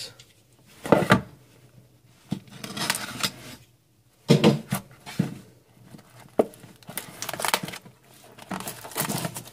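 A sealed trading-card box being opened and handled: a few sharp cardboard knocks, the loudest about a second in, between stretches of rustling and crinkling wrapper.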